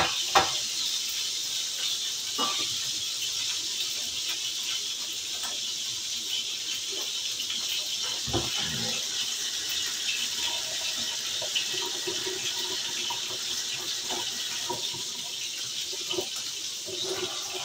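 Hamburger patties sizzling in a skillet on an electric stove burner, a steady frying hiss, with a single knock about eight seconds in.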